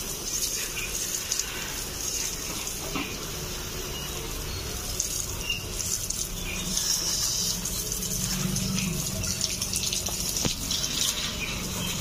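Water spraying from a shower head fitted to a tap, hissing steadily and spattering on a wire parrot cage and the wet floor beneath it.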